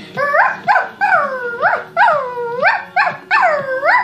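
A boy imitating a puppy: a string of about eight high whining yelps, each dipping in pitch and then sweeping sharply up.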